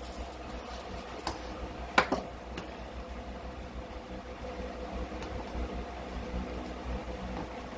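Light clicks and taps of hand tool work around a plastic toilet flange, with one sharp click about two seconds in, over a steady low hum.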